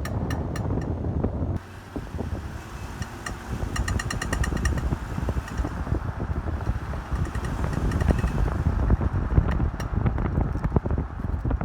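2005 Volvo XC90 on the move, with a low road rumble and runs of sharp, ringing metallic pings, several a second and at times in quick clusters. The owner traced the pinging to the driveshaft (prop shaft), not to a front CV joint or the suspension.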